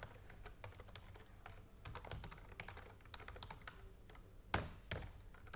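Faint, irregular typing on a computer keyboard, with one louder keystroke about four and a half seconds in.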